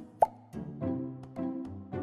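A short, sharp pop sound effect with a quick upward pitch about a quarter second in, over background music with a steady beat and sustained chords.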